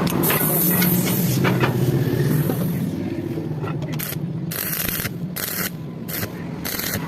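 Electric arc welding: a hissing, crackling arc struck in a long run near the start and then in several short bursts that start and stop abruptly, over a steady low machine hum.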